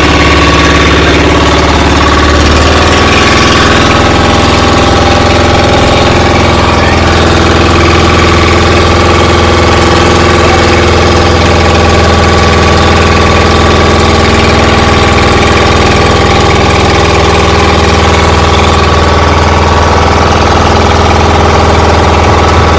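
A loud engine running steadily at a constant speed, with no change in pace.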